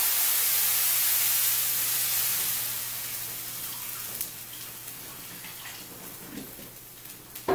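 Water poured into a hot frying pan just used to sear a roast, hissing and sizzling loudly as it flashes to steam, then dying down to a softer sizzle after about three seconds: the pan being deglazed to start the broth.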